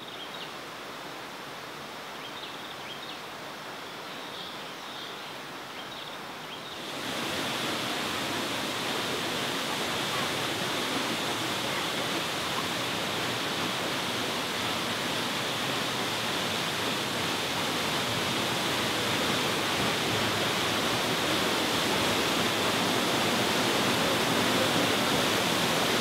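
Steady rush of a waterfall plunging into a pool, quieter at first with faint high chirps over it, then much louder from about seven seconds in and slowly growing louder.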